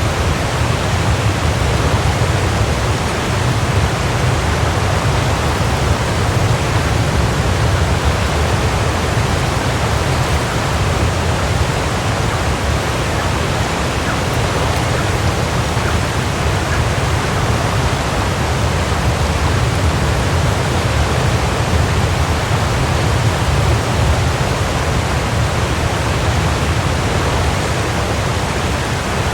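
Waterfall: a steady rush of falling water, a deep low rumble under an even hiss, unchanging throughout.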